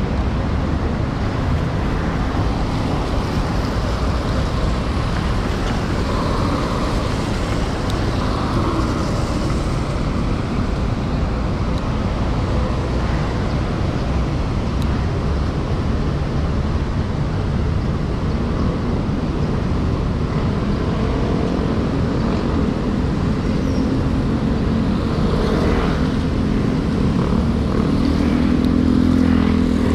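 City road traffic on wet pavement: car and motorcycle engines running and passing, over a steady low rumble. An engine grows louder near the end.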